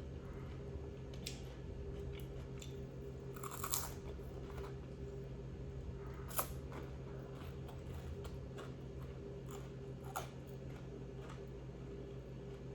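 A person biting and chewing crunchy food close to the microphone: scattered wet clicks with a few louder crunches, about four, six and ten seconds in, over a steady low hum.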